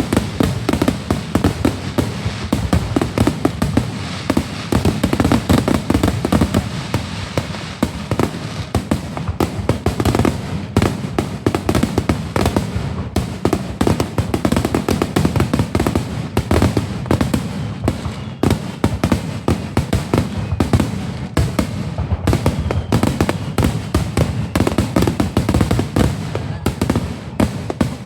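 Fireworks going off in rapid, unbroken succession, a dense string of overlapping bangs and crackles.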